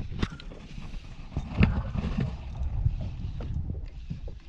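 Wind buffeting the microphone on a small fishing boat, over a low rumble of boat and water noise, with several short knocks, the loudest about a third of the way in.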